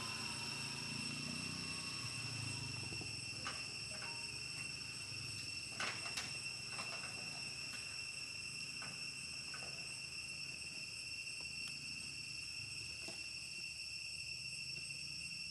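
Insects droning steadily in several high, unbroken tones, with a few faint ticks around the middle.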